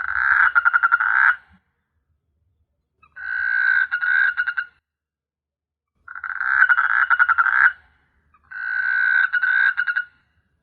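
Frog calling: four croaking bouts of about a second and a half each, separated by short pauses. Each bout is a rapid run of pulses.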